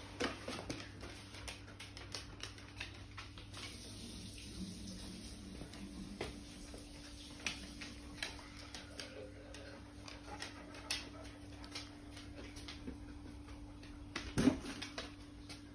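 Dogs' claws clicking and tapping on a wooden floor, scattered light clicks over a steady low hum. One louder knock comes near the end.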